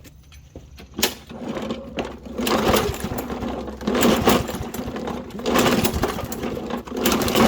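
Toro Recycler push mower's recoil starter pulled about five times in a row, the engine turning over with each pull but never catching. The owner suspects a clogged carburetor jet, since it runs only on starting fluid.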